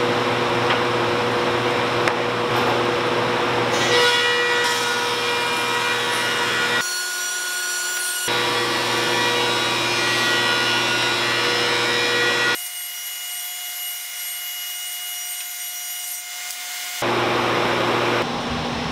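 Laguna thickness planer running with its dust collector, cutting the edges of a batch of boards fed through standing on edge, the way they are cleaned up for glue-up without a jointer. The steady machine hum drops out abruptly for a second or two partway through, then again for about four seconds later on.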